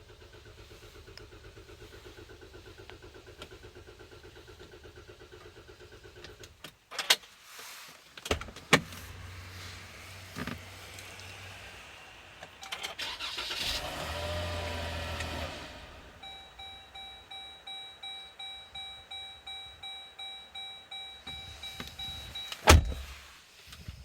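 Repeated failed start attempts on a Jeep Grand Cherokee that will not start. First a steady whir, then sharp clicks, a louder stretch of cranking around the middle, then a dashboard warning chime pinging about twice a second. A loud clunk comes near the end.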